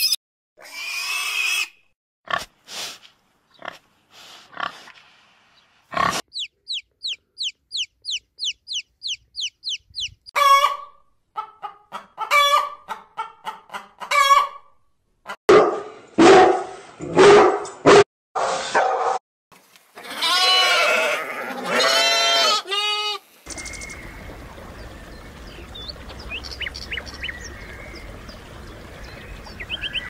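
A run of different animal calls, one after another. First comes a fast series of repeated high chirps, about three a second. Short pitched calls follow in quick succession, then a dense burst of overlapping calls. It ends in a faint steady background hiss with a few small chirps.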